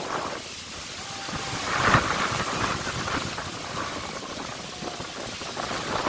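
Storm wind blowing across a phone microphone in gusts, with the strongest gust about two seconds in.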